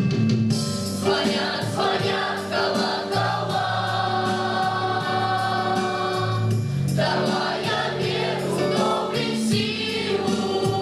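School cadet choir singing a song in unison over an instrumental accompaniment with a steady beat, holding long notes between phrases.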